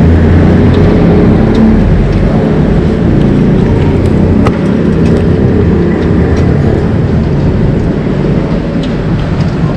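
Loud, steady low rumble of street noise, with a few faint clicks.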